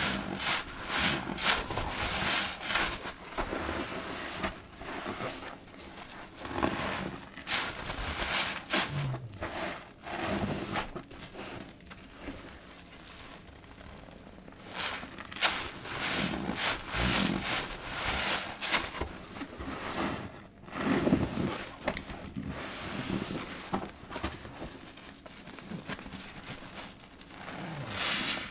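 A soap-soaked sponge squeezed again and again in plastic-gloved hands over sudsy water: wet squelching with crackling foam. The squeezes come in runs, with a quieter stretch near the middle.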